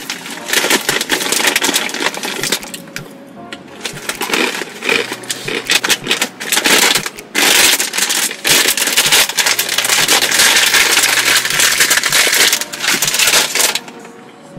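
Loud, dense crunching and crackling of a crushed dry Korean ramen-noodle snack, nearly continuous and stopping just before the end, over background music.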